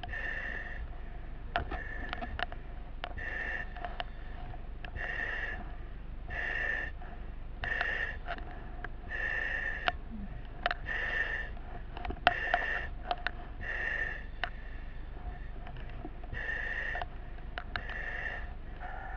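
Firefighter breathing through a self-contained breathing apparatus mask, the demand valve hissing with each breath about every second and a half, with sharp clicks and knocks in between.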